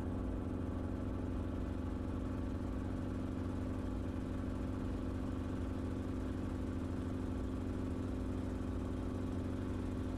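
Enstrom helicopter in cruising flight, heard from inside the cabin: engine and rotor running as an even, steady drone with a strong constant hum.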